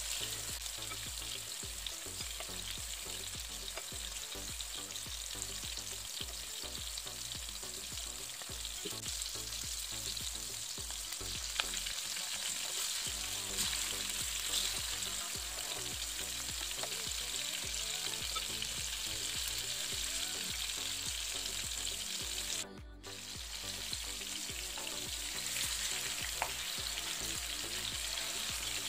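Green-masala-coated fish pieces sizzling in shallow oil in a nonstick pan: a steady crackle, with occasional clicks and scrapes of a metal spatula turning the pieces. The sound cuts out briefly about two-thirds of the way through.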